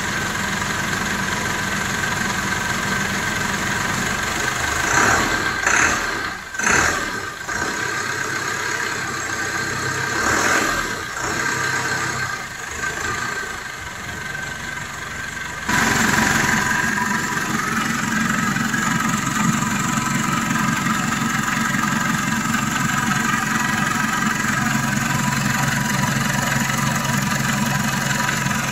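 Dodge S56 minibus diesel engine idling after its first start following a rebuild and a fuel-pump overhaul, with a few rises and falls in revs near the middle. From about halfway it is louder and steadier.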